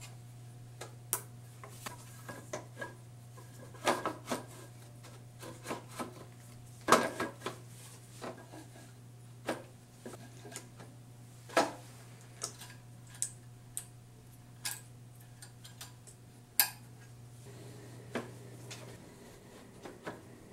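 Toyota Prius hybrid battery modules, in plastic cases, being slid and pushed together in the pack tray: irregular clicks and knocks of plastic against plastic and metal, with rubbing between them. The louder knocks come about 4, 7, 11 and 16 seconds in.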